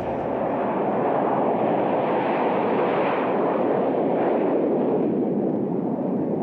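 Jet roar of a Harrier II jump jet flying past: its Rolls-Royce Pegasus turbofan makes a steady rumble, and a hiss swells about halfway through and then eases off.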